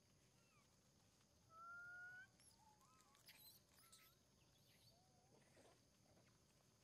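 Faint calls of long-tailed macaques: one short, slightly rising coo about a second and a half in, then a scatter of brief chirps, squeaks and a few clicks.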